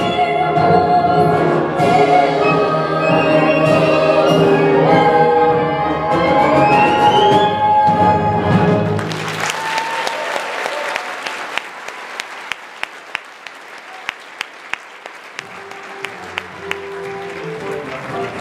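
A stage cast singing with a live pit orchestra to the end of a musical number, climbing in a rising run to a held final chord. About nine seconds in, the audience breaks into applause, with a few louder single claps, while the orchestra plays softly underneath near the end.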